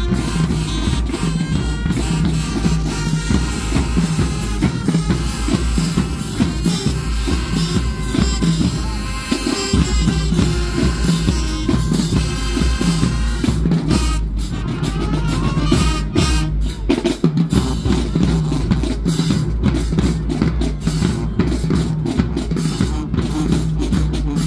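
Marching band music with loud, steady drumming; bass and snare drums are prominent throughout.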